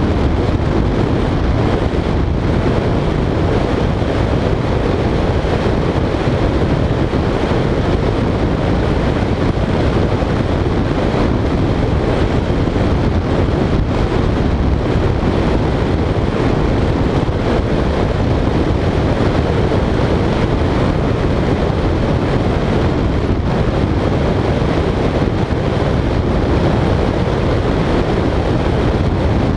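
Steady wind rush on the microphone mixed with the road noise of a vehicle cruising at highway speed. The noise runs unbroken, with no changes in speed or gear.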